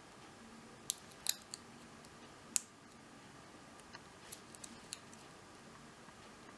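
Lock pick clicking against the pins and keyway of a 16-pin cruciform padlock during single pin picking: a few sharp metallic clicks about a second in and another near the middle, then several lighter ticks.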